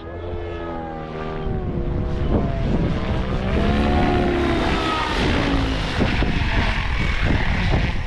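OMPHOBBY M7 electric RC helicopter's rotor and motor whine, its pitch sliding up and down as it manoeuvres. Strong wind rushes over the microphone, growing louder through the second half.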